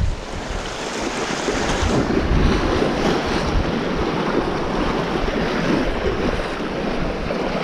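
Sea surf washing against shoreline rocks, with wind gusting over the microphone, a steady rushing noise heaviest in the low rumble.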